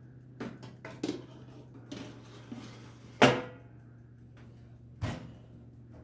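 Household handling noises: a series of light knocks and clicks, the loudest about three seconds in with a short ringing tail and another sharp knock near five seconds, over a steady low hum.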